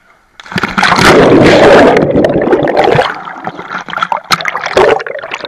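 Pool water splashing and sloshing over a camera in a waterproof case at the water surface. The sound comes in loud and rushing about half a second in, then breaks up after about three seconds into choppier splashes and knocks.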